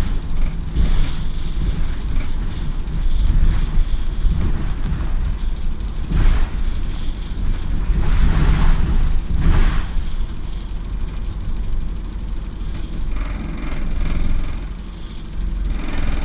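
Inside an Optare Solo M950 single-deck bus on the move: a steady low engine and road rumble with rattles. It grows louder and noisier for a moment about six seconds in and again for a couple of seconds a little later, then eases near the end.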